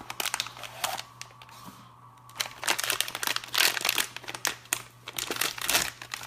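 Glued cardboard blind box being forced open by hand. Scattered clicks and scrapes come first, then from about two seconds in a stretch of dense crinkling and tearing of the packaging.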